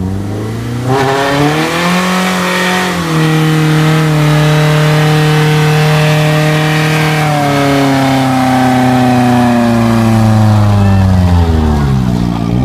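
BMW E30's engine revving hard and held high during a burnout, with the rear tyres spinning and hissing on the pavement. The revs climb over the first couple of seconds, hold, rise again about halfway through and fall back near the end.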